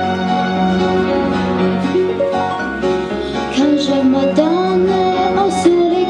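Instrumental accompaniment playing, with a girl's solo voice starting to sing over it about three and a half seconds in.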